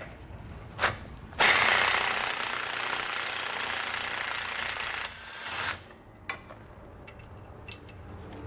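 Pneumatic tool with a 13-millimeter socket spinning out the bolt of a brake line bracket. It starts abruptly about a second and a half in and runs for about three and a half seconds, then gives a short second burst.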